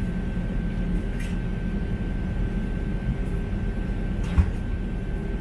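Steady low rumble inside a vehicle, with a constant thin tone running through it, a couple of faint clicks, and a single short knock about four seconds in.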